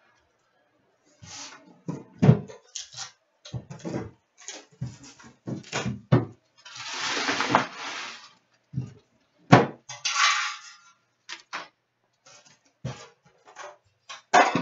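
Trading card box and packs being handled and opened: a string of knocks and taps, with a longer rustling or tearing of wrapping about seven seconds in and a shorter one around ten seconds.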